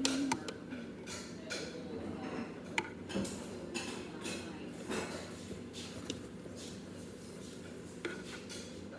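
Close handling noises: rustling with a few light clicks and clinks of small objects, scattered irregularly.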